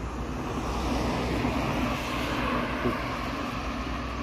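A motor vehicle passing on the street, its road noise swelling to a peak a couple of seconds in and then easing off.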